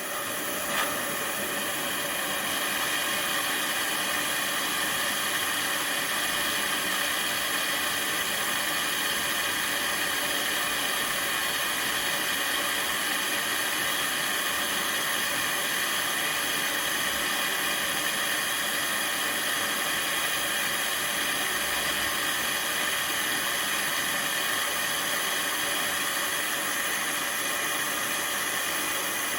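Steady rushing hiss with faint steady whining tones underneath, from the heating setup running while a hardened steel steering rod is heated for straightening. A small click about a second in.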